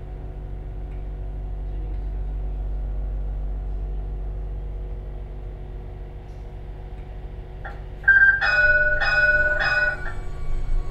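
Battery-electric tram rolling along with a low steady rumble and hum from its running gear and electric drive. About eight seconds in, the tram's warning bell rings in several quick strokes and rings on as it fades, warning pedestrians crossing the track ahead.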